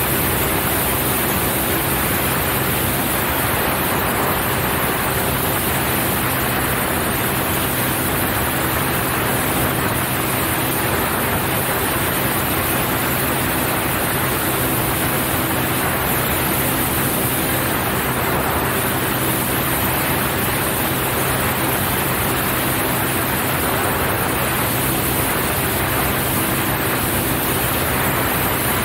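Cessna 172 in flight: its four-cylinder piston engine and propeller running at a steady pitch under a constant broad rush of wind noise.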